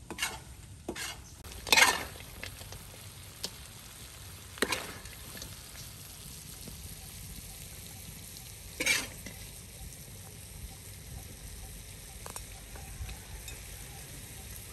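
Metal ladle scraping against a steel wok as stir-fried frog is scooped out, about five sharp scrapes with the loudest near 2 and 9 seconds in. A steady sizzle from the hot wok continues underneath.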